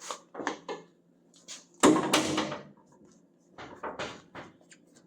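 Scattered knocks and scrapes of a windshield and its rubber gasket being worked out of a pickup cab's window opening, with a louder, longer scrape about two seconds in.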